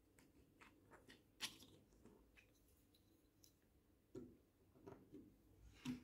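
Near silence with a few faint plastic clicks and taps from a Lego-style minifigure and bricks being handled on a desk: one about a second and a half in, and several more near the end.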